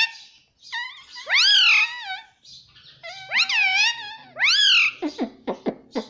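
Indian ringneck parrot vocalising: several loud, high-pitched calls that rise and fall in pitch, then a run of quick falling chirps near the end.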